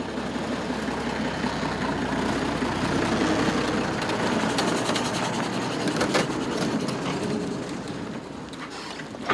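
Loaded logging truck rolling along a dirt forest track: the engine runs under a steady noise of tyres on dirt and gravel, with a few sharp knocks and rattles from the truck about halfway through.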